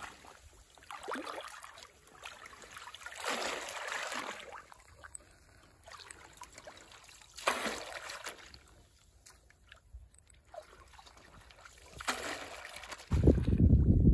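Water splashing and sloshing as a bamboo polo fish trap is plunged down into shallow muddy water, in separate splashes every few seconds. A louder low rumble sets in near the end.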